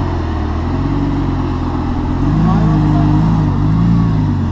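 Lamborghini engines running at low revs: a steady low idle throughout, and from a little after two seconds in an engine note that rises and falls as a Lamborghini Gallardo's V10 pulls away slowly.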